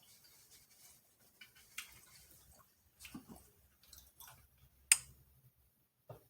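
Person eating close to the microphone: scattered soft chewing and mouth clicks, with one sharp click about five seconds in.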